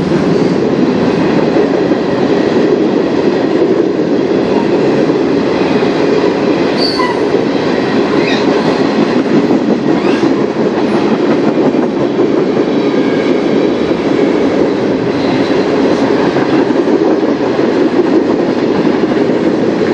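Freight train's tank cars and covered hopper cars rolling past, a steady, loud rumble of steel wheels on rail.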